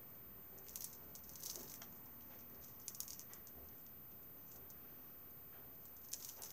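Beaded necklaces and metal chains being handled, giving soft clicks and jingles as the beads and links knock together in a few short bursts.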